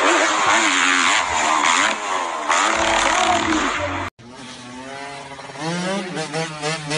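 Dirt bike engine revving hard, loud and noisy, cutting off suddenly about four seconds in. Then a motorcycle engine running more quietly and rising in pitch as it accelerates.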